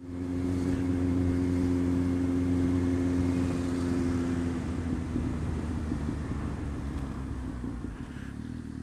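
Motorcycle engine and road noise while riding: a steady engine note for about four and a half seconds, then the engine eases off into a rougher, quieter rumble.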